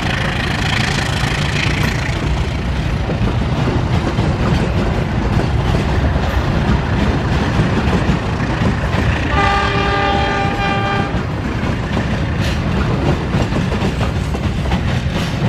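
Economy-class passenger coaches of a departing train rolling past on the rails: a steady heavy rumble with wheel clatter. About nine and a half seconds in, a train horn sounds once, held for about a second and a half.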